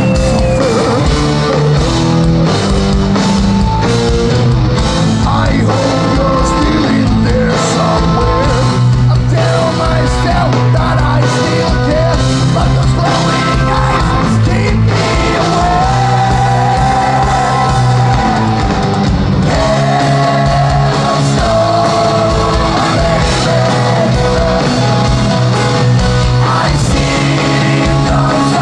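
Hard rock band playing a song live: a male lead vocal, partly shouted, over loud guitars, bass and drums.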